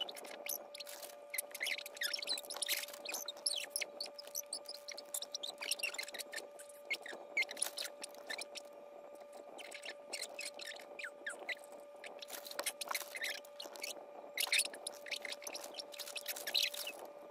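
Dog chewing treats: irregular wet clicks and crunches in clusters, over a steady faint hum.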